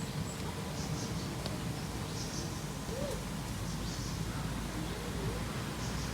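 Outdoor ambience: faint, short, high bird chirps recur about once a second over a steady low rumble.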